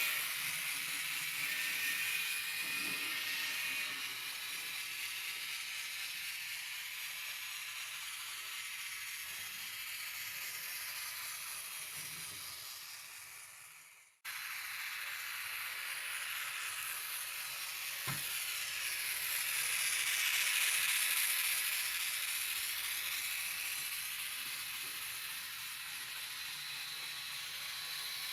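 Spray paint hissing steadily in two long stretches: the first fades out about halfway through and the second starts straight after.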